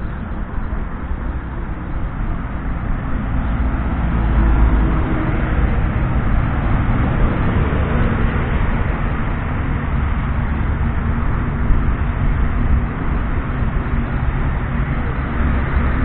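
Steady wind rumble on the microphone and tyre noise from a bicycle riding along a paved cycle path, with car traffic passing on the road beside it.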